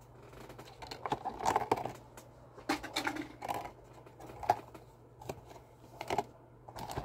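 Cardboard and plastic packaging of a trading-card collection box being handled and pulled apart: scattered light taps, clicks and rustles as the contents are worked free.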